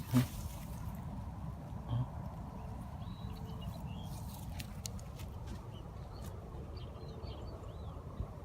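Outdoor ambience: a steady low rumble, with faint bird chirps several times and a few soft clicks.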